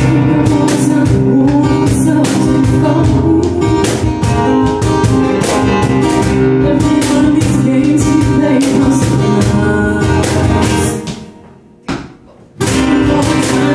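Live acoustic band playing: Roland digital piano, strummed acoustic guitar and a cajon struck with the hands in a steady beat. Near the end the whole band stops together for about a second and a half, then comes back in.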